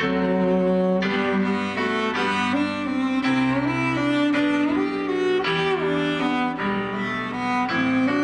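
Cello and piano duo playing: the cello holds long bowed notes and slides between some of them, over piano chords struck about once a second.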